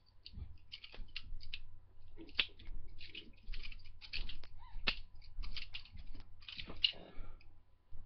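Frost Cutlery butterfly knife being handled and swung, its metal handles and blade clicking and clacking irregularly, several clicks a second.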